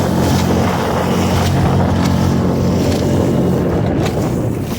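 Small 6 hp outboard motor pushing a mini pontoon boat, running steadily under way, with wind noise on the microphone.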